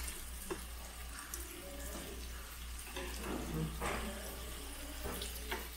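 Pork belly sizzling on a hot tabletop grill plate, a steady hiss, with a few sharp clicks from the metal scissors and tongs cutting and turning the meat.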